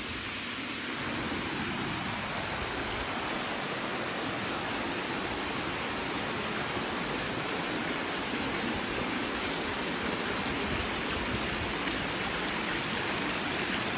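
Shallow creek water flowing over sandstone slabs and small cascades: a steady, unbroken wash.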